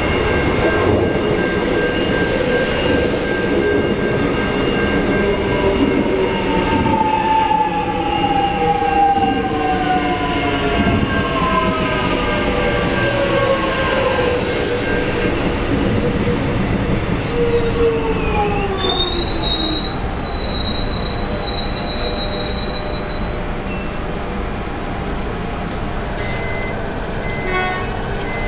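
Alstom X'Trapolis electric suburban train pulling into a platform and braking to a stop, its motor whine falling in pitch as it slows. Once it has stopped a steady high whine runs for a few seconds, then short beeps sound near the end as the doors open.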